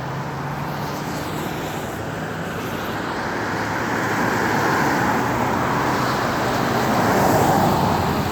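Highway traffic on wet pavement: vehicles' tyre and engine noise swelling toward a peak near the end, then easing slightly.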